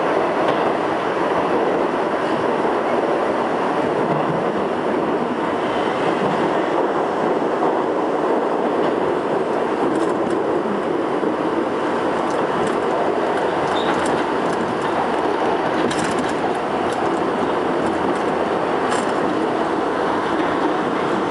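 R62A subway train running at speed through a tunnel, heard from inside the front of the car: a steady, loud rumble of wheels on rail, with a few sharp clicks in the second half.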